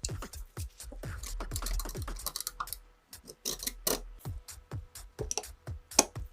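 Background electronic music with a beat, over a run of sharp clicks.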